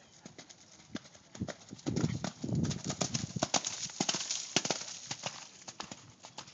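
Hoofbeats of a horse cantering on wet, muddy arena footing. The beats grow louder as the horse passes close, loudest around the middle, then fade as it moves away.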